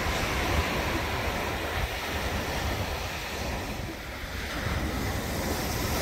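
Small sea waves breaking and washing up on a sandy beach, with wind buffeting the microphone.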